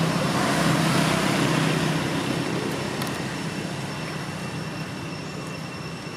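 Motor vehicle engine running close by, loudest in the first couple of seconds and then fading as it moves away.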